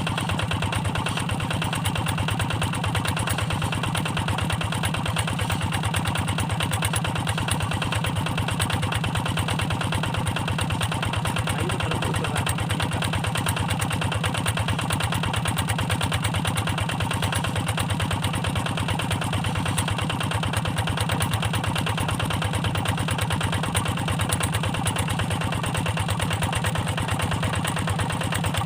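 Single-cylinder diesel engine of a hand tractor running steadily with a fast, even firing rhythm.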